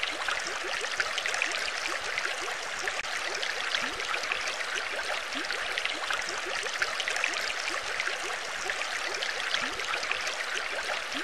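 Underwater water ambience: a steady wash of moving water with many small bubbles.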